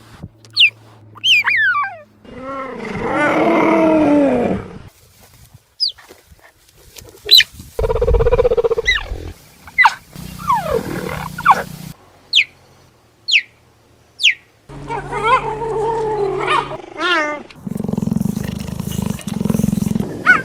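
Cheetah vocalising in a string of separate calls: short high-pitched chirps that fall in pitch, longer wavering yowls that rise and fall, and deeper rough growling calls near the end.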